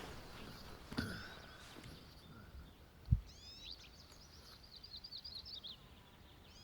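Faint songbird song: a few high notes sweeping downward, then a quick high trill lasting about a second and a half. A single low thump comes just before it.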